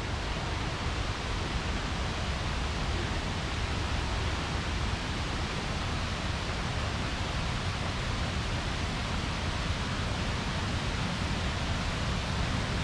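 Steady rushing of water from a river's falls and rapids, an even hiss with no breaks.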